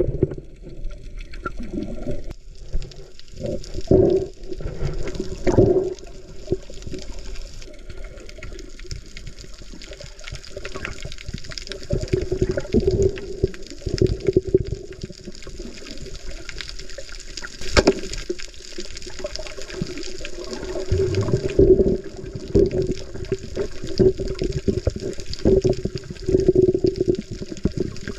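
Muffled underwater sound heard through an action camera's housing: water swishing and gurgling as the diver moves, with a few sharp knocks at irregular moments.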